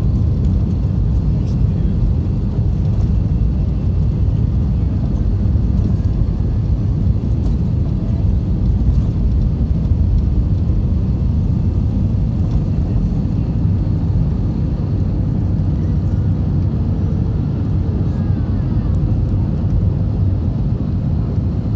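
Airliner jet engines at take-off thrust, heard from inside the cabin during the take-off roll: a loud, steady low rumble.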